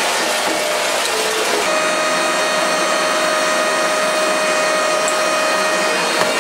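3R 15-320 industrial shredder running as its cutters work into a refrigerator cabinet: steady grinding and crunching noise. A steady whine joins it about two seconds in.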